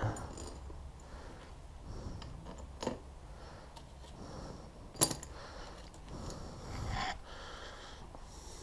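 Light clinks and handling of metal tools and engine parts while a Honda CRF250R top end is taken apart, with a sharp metal click about five seconds in and a smaller one near three seconds.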